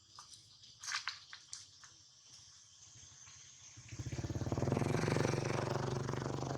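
A motorcycle engine passing by, growing louder from about four seconds in and fading near the end. A few faint clicks come before it.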